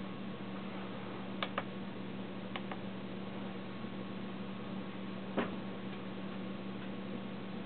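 Sharp clicks of the oscilloscope's front-panel buttons being pressed: a close pair about a second and a half in, another pair a second later, and a single louder click past five seconds. A steady low hum and hiss run underneath.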